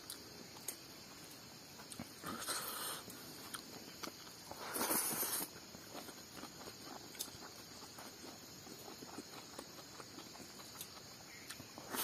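A person eating by hand: soft chewing and small wet clicks of lips and fingers in rice, with two short louder noisy bursts about two and a half and five seconds in. A faint steady insect chirr sits behind it.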